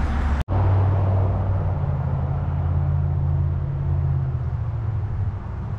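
A low, steady engine hum with an outdoor rumble behind it, starting after a brief cut about half a second in and easing slightly near the end.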